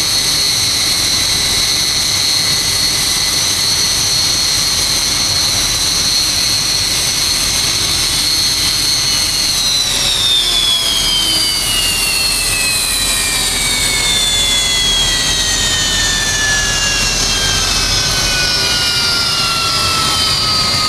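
BAE Hawk T1 jets' Adour turbofan engines whining steadily at idle. About halfway through, the high whine begins to fall and keeps falling steadily, an engine spooling down after shutdown.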